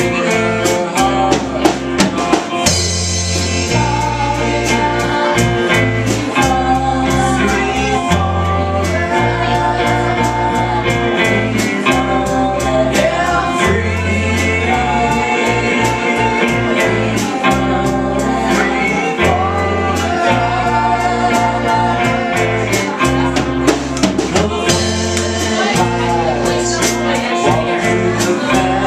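Live band playing a song: electric guitars, electric bass and a Mapex drum kit keeping a steady beat, with sung vocals over them.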